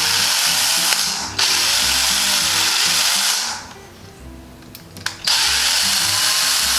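Cordless drill-driver running in reverse to back screws out of a door lever lockset. It runs in two spells: one about three and a half seconds long with a brief catch partway through, and a second starting about five seconds in.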